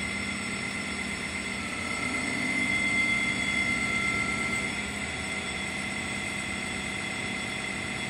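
Baker band sawmill's head drive running as the saw head is lowered, a steady mechanical hum with a high whine. It swells slightly, with an extra tone, from about a second and a half in to about five seconds, then settles back to the steady hum.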